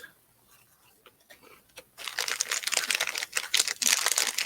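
Plastic snack bag being handled and crinkled: a few faint rustles, then from about two seconds in a dense, continuous crackling, as the bag of rings is emptied.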